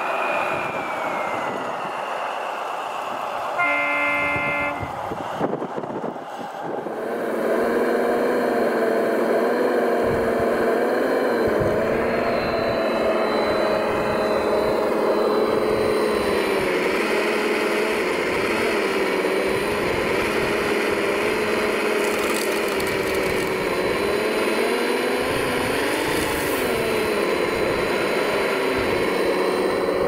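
RC model heavy truck: a short horn toot about four seconds in, then the truck's engine sound runs steadily, its pitch wavering slightly up and down.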